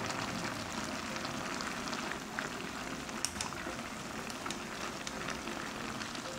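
Braised beef short ribs simmering in a cast-iron pot, a steady bubbling sizzle with many small pops, as the sauce boils down and reduces.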